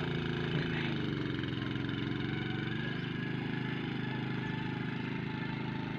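A small engine running steadily at idle, its pitch wavering slightly about a second in and then holding steady.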